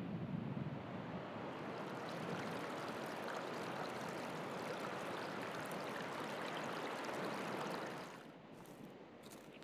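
Steady rushing noise like running water in a stream, with no distinct tones. It drops to a much quieter level about eight seconds in.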